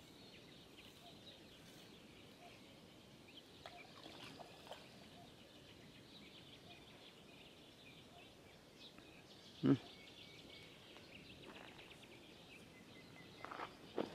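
Birds chirping faintly, with a single sharp knock about ten seconds in.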